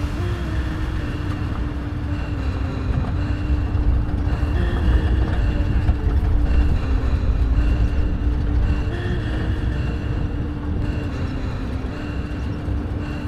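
A motor vehicle running, a continuous low rumble with a steady engine tone that shifts slightly in pitch now and then.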